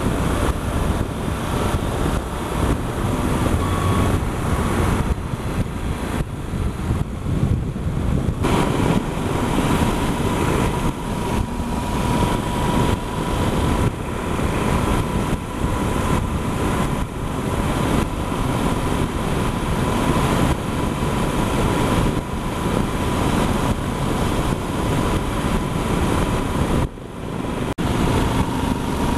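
Wind rushing and buffeting over a helmet-mounted microphone at highway speed, over the running of a Yamaha Super Ténéré's parallel-twin engine and tyre noise. Near the end the noise briefly drops, then picks up again.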